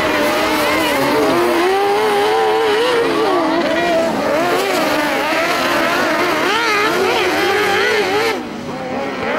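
Several kart cross buggies' motorcycle engines racing on a dirt track, their pitch rising and falling with the revs through the bends. The sound dips briefly about eight seconds in.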